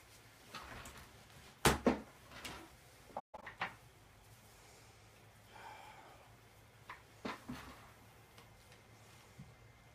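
A few scattered knocks and clunks of objects being handled, the loudest pair about two seconds in and another pair about seven seconds in, over a low steady room hum; the sound cuts out completely for an instant just after three seconds.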